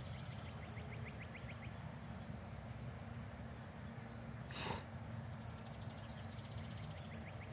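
Wild songbirds singing, with two runs of rapid trilled notes, one early and one near the end, over a steady low rumble. A brief hissing burst comes about halfway through.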